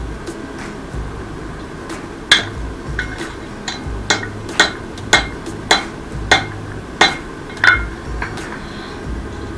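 Blacksmith's hammer striking rebar on an anvil: about ten sharp, ringing blows at a steady pace, starting about two seconds in and stopping near the end.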